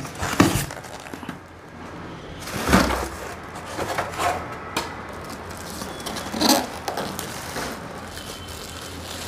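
Packaging being handled: a clear plastic wrapping bag rustling and white polystyrene foam end caps scraping as a printer is lifted out of its cardboard box and unpacked, with a few louder scrapes among softer rustling.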